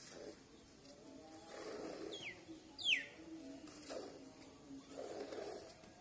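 Cow being milked by hand: milk squirting in hissing spurts into a steel bucket of frothy milk. A bird gives two quick, sharp whistles falling steeply in pitch a little past the middle.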